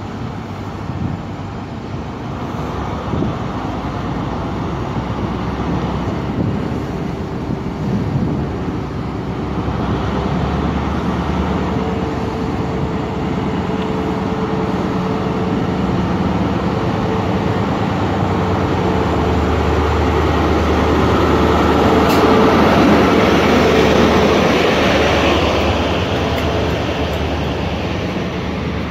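Diesel engine of an HST's Class 43 power car running as the train draws slowly into the platform. It grows steadily louder to a peak as the power car passes, about three-quarters of the way in. Near the end the coaches roll by with a rushing wheel noise.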